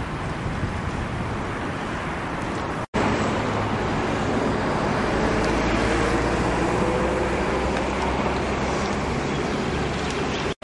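Steady outdoor noise with no single clear event, broken by a sudden dropout about three seconds in; after it a steady low hum runs underneath.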